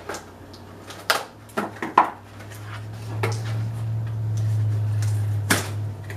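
A wrapped present being handled and opened, with a few sharp clicks and knocks about a second in, around two seconds in, and near the end. A low steady hum swells from about two and a half seconds in.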